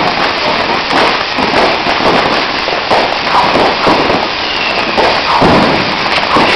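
Ground fountain firework spraying sparks: a loud, steady hissing rush crowded with crackling pops.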